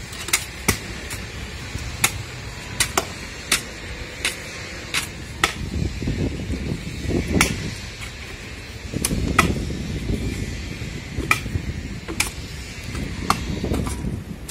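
Hoes chopping into packed clay soil and roots around a tree's root ball: sharp, irregular strikes about one or two a second, with lower scuffing noise of soil being scraped in between.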